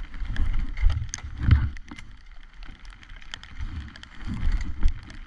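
Wind buffeting the camera's microphone in uneven low rumbling gusts, with scattered light ticks and knocks.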